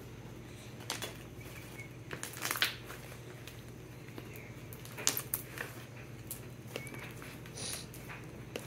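Scattered clicks and taps on a laptop touchpad, a cluster of them a little over two seconds in, over a steady low hum.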